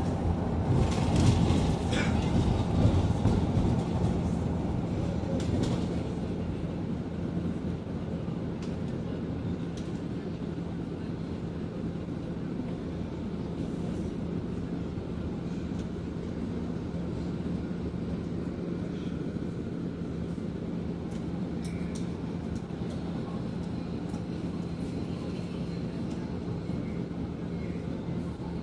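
Inside a Scania city bus: road and running noise as the bus slows to a stop in traffic about five seconds in, then the engine idling with a steady low hum while it stands.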